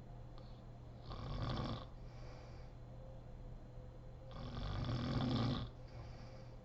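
A sleeping woman snoring: two loud snores about three seconds apart, the second longer, with quieter breathing between them.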